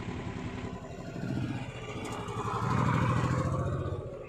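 A motor vehicle's engine running, growing louder to a peak about three seconds in, then fading.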